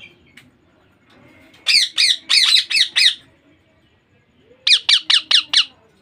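Baby Indian ringneck parakeet calling: two quick runs of about six short calls each. The first run begins a little under two seconds in, and the second comes near the end.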